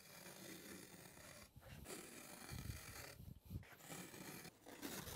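A trimming knife drawn along the gap between wood-veneer slats, cutting through the acoustic panel's felt backing. It gives a quiet scratchy rasp in several strokes with short pauses between them.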